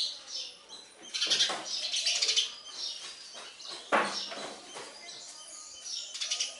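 House sparrows chirping in several quick bursts of rapid high-pitched chirps, the sound of sparrow chicks at the nest being fed. A sudden short sound comes about four seconds in.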